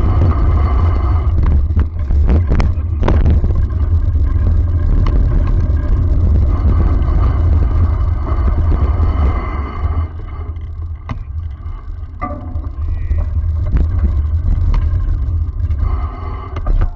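Ride noise of a dog scooter on a dirt trail: a steady deep rumble of wind and rolling tyres on the camera microphone, with scattered knocks and rattles over bumps. It gets quieter about ten seconds in.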